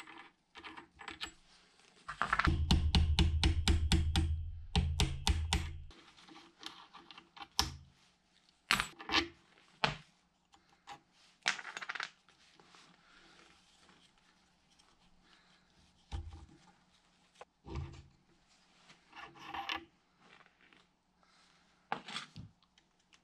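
Small metal parts clinking, scraping and rubbing as the spindle nuts and pulley parts of a mini lathe headstock are turned and lifted off by hand, in scattered short clicks. A louder, fast, evenly repeating passage with deep bass runs from about two to six seconds in.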